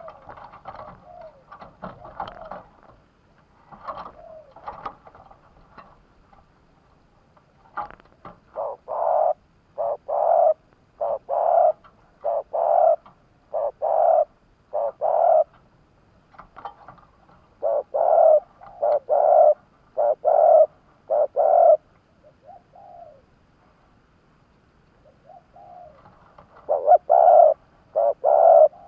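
Spotted dove cooing. Softer, looser calls in the first few seconds give way to loud runs of short low coos, about one a second, in three phrases with pauses between; this is the repeated calling used in a decoy to draw wild doves.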